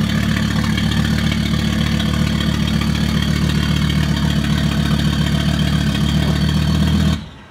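Volvo V70 XC's turbocharged inline-five engine idling steadily, then cutting off suddenly near the end.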